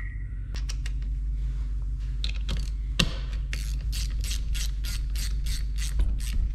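Hand ratchet clicking as the cover bolts are run down on a Dana 300 transfer case, at first a few scattered clicks, then about three and a half seconds in a steady run of about four clicks a second.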